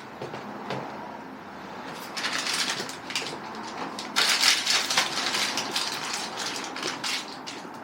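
Crinkling and rustling with small clicks and knocks as sound-deadening sheets are handled and pressed onto a van's metal panels, loudest in bursts about two and four seconds in.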